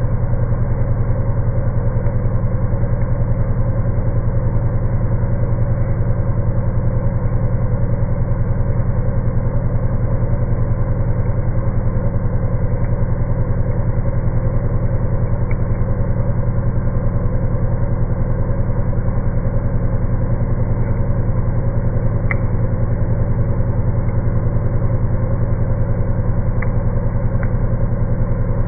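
CNC milling spindle driving a four-insert 50 mm face mill through aluminium, heard slowed down with the slow-motion picture as a deep, steady drone with a fast, even pulsing from the inserts' cuts. A few faint clicks come near the end.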